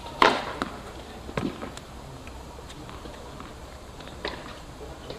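Tennis ball knocks on an outdoor hard court, from racket hits and bounces. The loudest is a sharp pop about a quarter second in, followed by fainter knocks near half a second, around one and a half seconds and about four seconds in.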